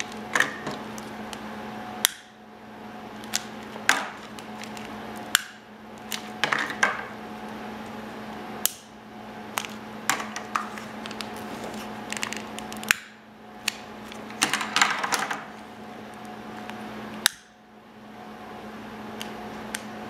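BIC multi-purpose BBQ lighter worked repeatedly: sharp clicks of the trigger and piezo igniter every second or few, with a couple of short stretches of quick crackling clicks. A steady hum runs underneath.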